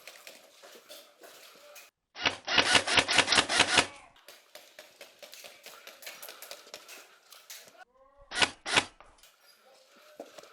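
An airsoft gun firing close by: a quick string of about a dozen shots about two seconds in, then two more shots near the end.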